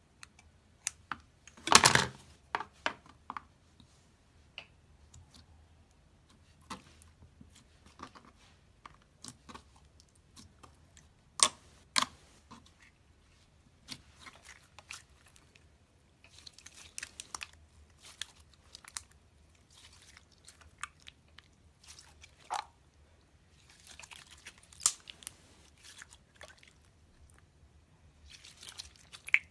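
Slime being squeezed and poked by hand: scattered sticky clicks and pops, a loud burst of crackling about two seconds in, and later stretches of fine crackling.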